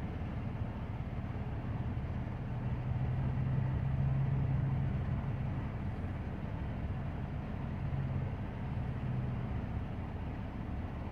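Volvo crawler excavator's diesel engine and hydraulics running steadily while it works scrap. The engine note swells as it takes load about three seconds in, and again near the end.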